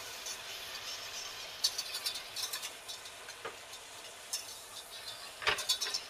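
Butter, shallots and garlic sizzling in a stainless steel saucepan. A wire whisk clinks and scrapes against the pan in quick strokes, at about two seconds in and again near the end.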